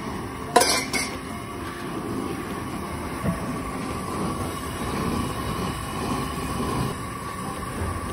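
LPG gas burner running with a steady rushing noise. About half a second in comes a sharp metallic clank of a steel ladle against a steel pot, with a lighter clink just after.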